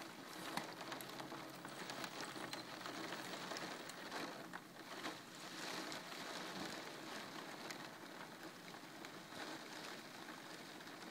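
Downpour of rain falling steadily: a dense, even hiss with many small drop ticks scattered through it.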